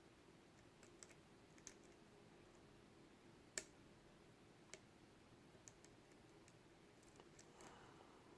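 A few faint, sharp metallic clicks and ticks, the loudest about three and a half seconds in, from a small flag pick and tension wrench working the pins of a Mul-T-Lock Jr. dimple-lock core while it is being picked.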